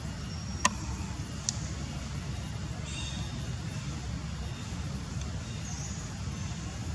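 Steady low outdoor rumble, with two sharp clicks in the first second and a half.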